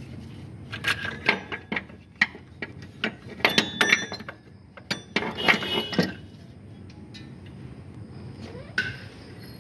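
Metal tools and parts clinking and clattering as they are handled: a string of sharp clinks, some ringing briefly, busiest in the middle, then quieter.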